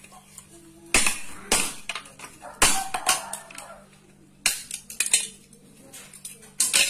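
Plastic remote-control casing being knocked and pried open: a series of sharp plastic clacks and knocks, about seven, at irregular intervals.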